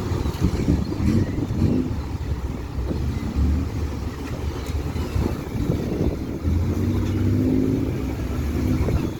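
A boat's engine running steadily under rough noise, with a few scattered knocks.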